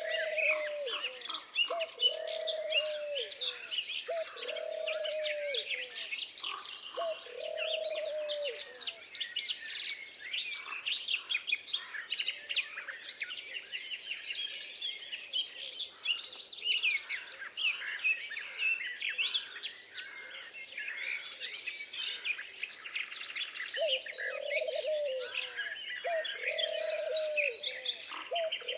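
A dense chorus of many birds chirping and singing. A lower call repeats roughly every second and a half in a run near the start and again near the end.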